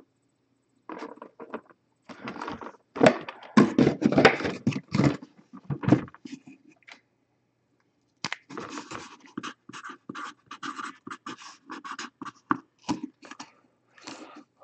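Hands handling cardboard boxes and packaging: irregular scraping and rustling, loudest a few seconds in, pausing for about a second near the middle and then going on.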